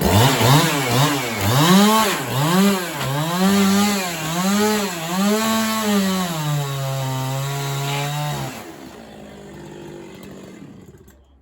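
Two-stroke chainsaw revving up and down over and over, about one and a half times a second, as it bucks sawmill slabs. It then holds a steady pitch for about two seconds and falls away about three-quarters of the way through.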